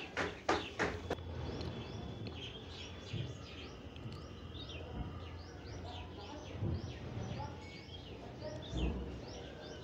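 A few sharp knocks in the first second as a metal spatula strikes the steel kadhai, then dull soft thumps as thick halwa is scraped and pressed onto a steel plate. Throughout, a small bird chirps repeatedly, about two or three short calls a second.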